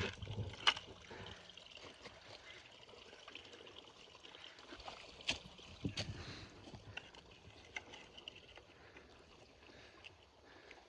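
Faint, scattered footsteps and crunches on wet woodland ground, a few sharper steps about five and six seconds in, fading out near the end.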